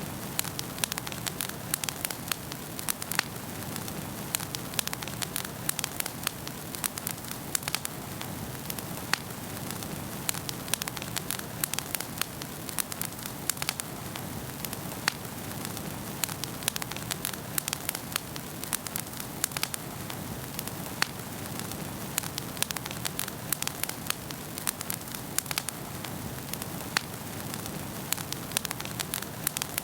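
Wood fire in a fireplace crackling steadily: many sharp pops and snaps, several a second, over a soft low hiss of burning.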